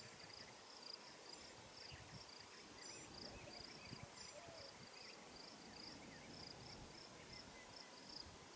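Near silence with faint insect chirping in an even pulse, about two or three high chirps a second.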